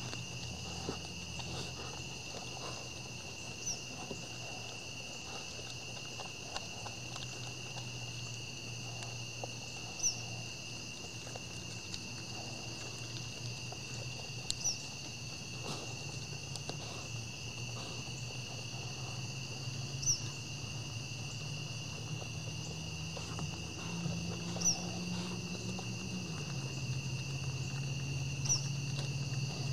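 Dusk chorus of crickets and other insects trilling steadily, with a short high chirp repeating about every five seconds. Faint knocks and rustles come from deer feeding at plastic pans, over a low steady hum.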